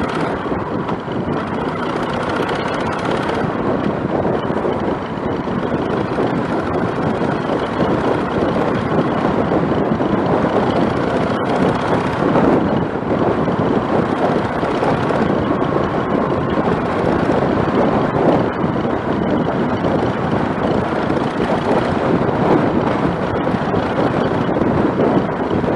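Motorcycle running at road speed, its engine mixed with steady wind rushing over the microphone.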